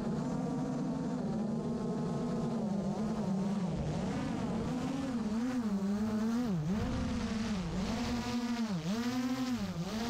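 Brushless motors of a 7-inch FPV quadcopter, heard from the onboard camera as a buzzing whine. It holds a steady pitch for the first few seconds, then drops and climbs back about once a second with the throttle.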